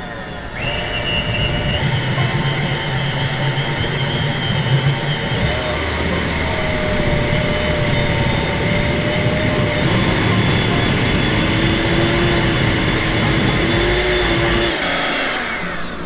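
Black+Decker electric hand mixer running with its whisk beating egg whites in a glass bowl: a steady motor whine that starts about half a second in and cuts off near the end. The whites are whipped from liquid to stiff peaks.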